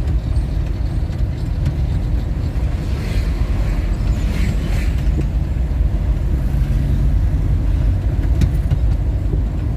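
Steady low rumble of a car on the move, as heard by its passengers: engine and road noise.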